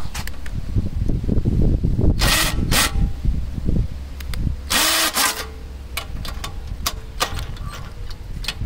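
Foster FK 38-21 21V cordless drill-driver running in three short bursts on a scooter mudguard bolt, its motor whirring up and back down each time, amid low rumble and knocking from handling.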